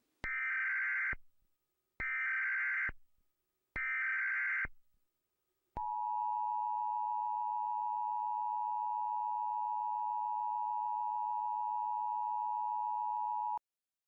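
Emergency Alert System tones: three one-second bursts of screeching SAME header data, then the steady two-tone EAS attention signal held for about eight seconds before it cuts off abruptly.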